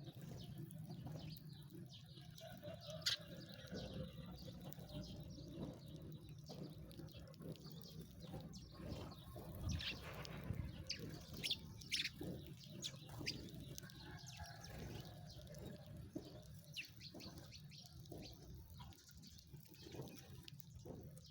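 Sparrows chirping: scattered short, high chirps, busiest in the middle stretch, over a faint steady low hum.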